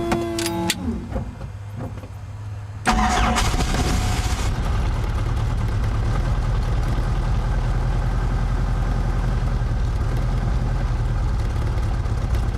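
Helicopter engine start attempt on a weak battery: about three seconds in the starter kicks in with a sudden loud burst, then the engine turns over with a steady, pulsing low rumble.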